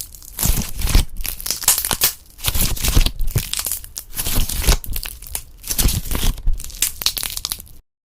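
Slime being squished, poked and stretched by hand, making dense irregular crackling and popping. It cuts off suddenly near the end.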